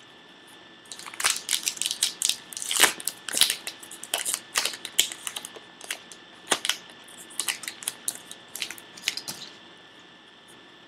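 A 2013 Topps Archives baseball card pack's wrapper being torn open and crinkled by hand: a dense run of crackling and rustling that starts about a second in and dies away near the end.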